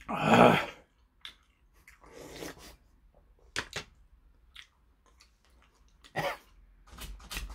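A loud slurp of broth drunk straight from a bowl, followed by quieter eating sounds and a few light clicks of chopsticks and dishes.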